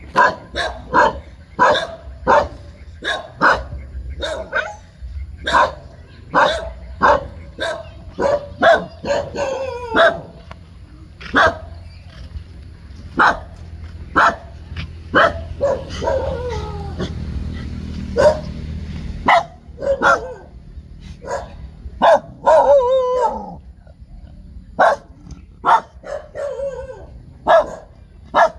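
Dog barking over and over in short, sharp barks, roughly one a second, with a few longer calls that slide down in pitch.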